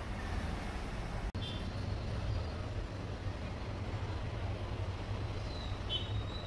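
Aquarium protein skimmer's pump running: a steady low hum with a hiss of air and water over it. It drops out for an instant about a second in.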